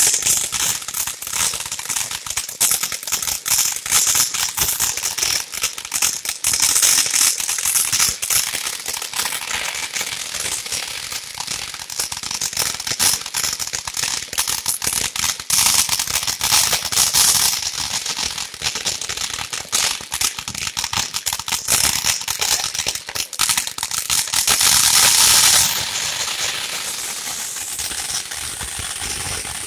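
Ground fountain firework spraying sparks with a dense crackling hiss. About 25 seconds in it swells louder for a moment, then thins to a steadier hiss with fewer crackles.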